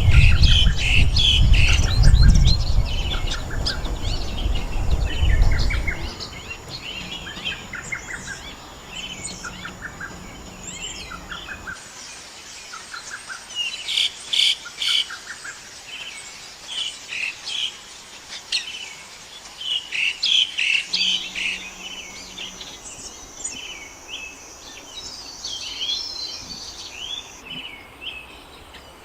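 Several songbirds chirping and singing, with short repeated trilled phrases about once a second over the first half and denser bursts of chirps later. A low rumble underlies the first six seconds, and a thin, steady high whine runs through much of the second half.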